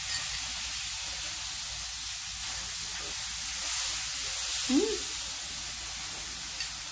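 Steady background hiss, with one short hum-like sound that rises and falls in pitch a little after halfway and a faint click near the end.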